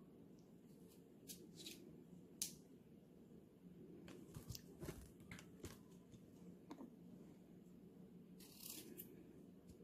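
Faint kitchen handling noises over a low steady room hum: scattered clicks and taps, one sharper tap about two and a half seconds in, a cluster of clicks around the middle, and a brief rustle near the end.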